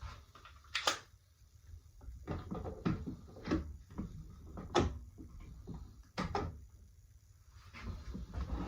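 Irregular wooden knocks and clacks of timber workpieces being handled and set down on a bench, about a dozen in all. The sharpest come about a second in and just before five seconds.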